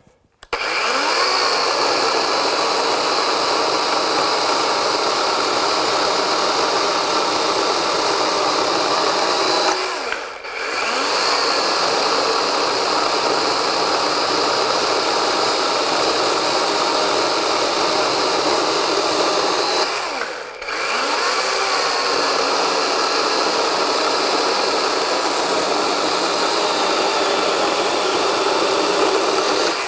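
DeWalt 12-inch XR cordless chainsaw running under load through three cuts of about ten seconds each, each with a steady, even tone and a brief drop between cuts.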